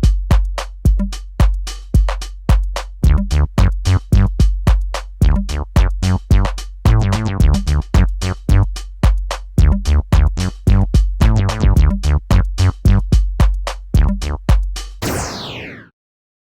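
Electronic outro music with a steady drum-machine beat, about two hits a second, over a bass line. It ends in a falling sweep near the end and then cuts off to silence.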